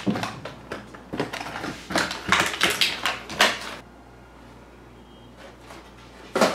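Packaging being handled on a wooden table: a plastic bag and a cardboard box rustling and scraping, with a few sharp clicks, stopping about four seconds in. A short rustle comes near the end.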